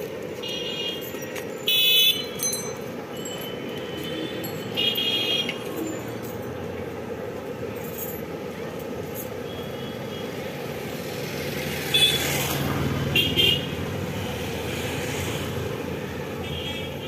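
Several short vehicle horn toots at intervals over a steady background of road traffic.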